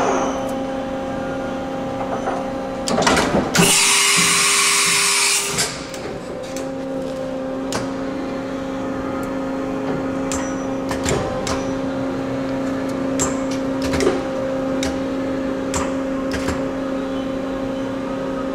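Steady machine hum made of several held tones, one of which changes pitch about six seconds in. It is broken about three and a half seconds in by a loud hiss, like escaping air, that lasts about two seconds. Scattered light clicks run throughout.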